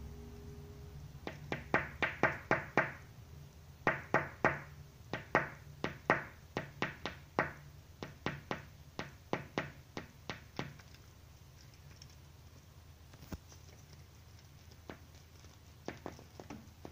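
A tit pecking at a window pane: quick runs of sharp taps on the glass for about ten seconds, then a few scattered single taps.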